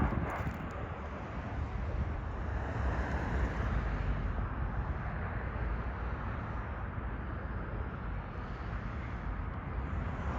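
Low, steady rumble of jet airliner engines mixed with wind buffeting the microphone.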